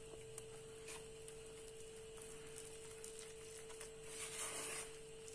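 Faint squishing and scraping of a wooden spoon stirring thick chickpea-flour batter in a metal bowl, with a few soft knocks early and a louder scrape about four seconds in, over a steady faint hum.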